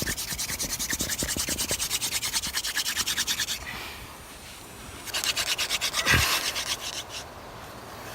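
Hand drill fire-making: a wooden spindle spun fast back and forth between the palms, rubbing in the notch of a wooden fireboard and grinding out hot, smoking char dust. The rapid rhythmic rasping stops about three and a half seconds in, picks up again a second and a half later, and pauses once more near the end.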